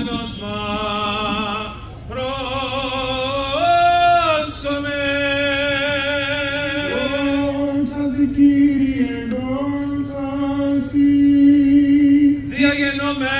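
Byzantine liturgical chant: voices sing a slow, melismatic Greek Orthodox hymn, with long notes that slide between pitches over a steadily held lower note.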